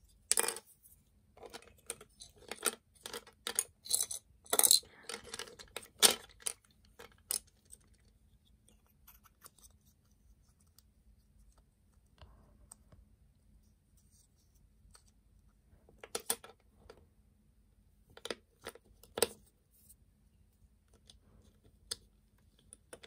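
Plastic parts of a small electric model train clicking and tapping together as its body shell is fitted back onto the chassis by hand. A busy run of sharp clicks and knocks over the first several seconds, then a few shorter groups of clicks later on.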